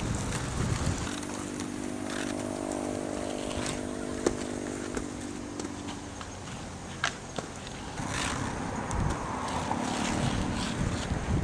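Outdoor ambience with wind rumbling on the microphone. From about a second in, a steady engine hum of a motor vehicle runs for about five seconds, with scattered sharp clicks. In the last few seconds, inline skate wheels rolling on asphalt grow louder.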